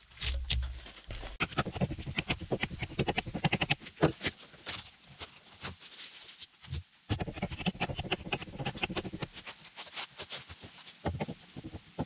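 Hatchet chopping and scraping bark off a log: a fast, uneven run of sharp chops and scrapes, broken by a short lull about halfway through. A low rumble fills the first second or so.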